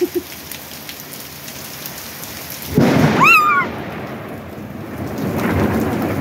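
Steady rain hiss, broken about three seconds in by a sudden loud clap of thunder lasting about a second. Rolling thunder then builds again toward the end.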